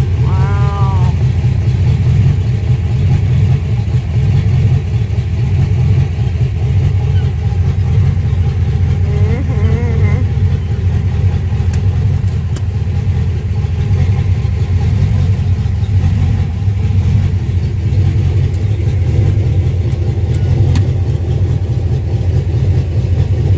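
Freshly rebuilt car engine running at a steady idle on its first run after the rebuild, a loud, even, pulsing rumble. Short higher glides come through under a second in and again around ten seconds in.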